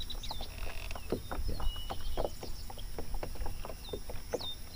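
Small waves lapping and slapping irregularly against a fishing boat's hull, over a low rumble, with a few short bird chirps.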